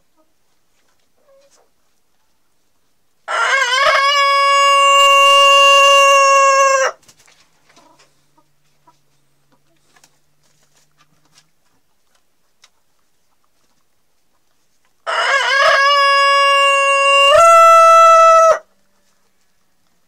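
Rooster crowing twice, each crow a long, loud, held call of about three and a half seconds. The second crow steps up in pitch near its end.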